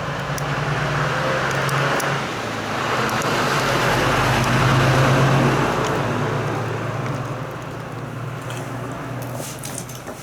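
A motor vehicle going past, its engine hum and road noise swelling to a peak about halfway and then fading, with a few faint crackles from a wood fire.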